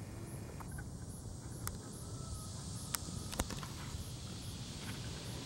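Insects chirping steadily in summer grass, a high chorus that pulses a few times a second, over a low steady rumble. A few sharp clicks fall in the middle.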